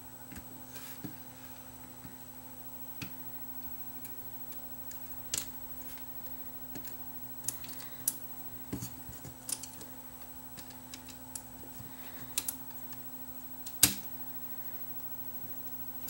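Irregular small clicks and taps of hands and tools working on a cassette deck's tape mechanism while a belt is fitted around its gears, with one sharper click near the end. A steady low hum runs underneath.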